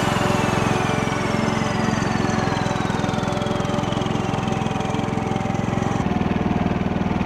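Wheel Horse garden tractor engine running steadily with a fast, even beat as the tractor drives along. A faint whine slowly falls in pitch above it, and the engine sound shifts abruptly about six seconds in.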